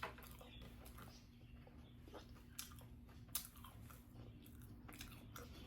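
Faint chewing with a few soft mouth clicks and crunches, as someone eats between remarks.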